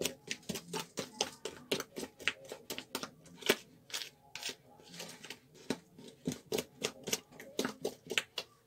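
Cake batter being mixed by hand in a bowl, the utensil clicking against the side of the bowl about four times a second in a quick, uneven rhythm.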